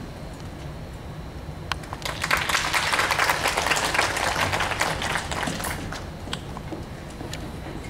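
Audience applause that starts about two seconds in, swells, and dies away by about six seconds, with a few scattered knocks before and after it.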